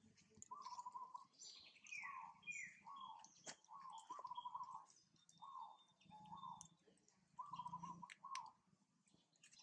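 A bird calling over and over in short warbling notes, about one a second, with two quick downward chirps about two seconds in. Faint scattered clicks run underneath.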